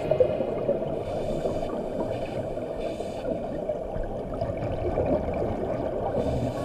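Steady, muffled water noise picked up by a camera underwater, mostly a low rumbling hiss.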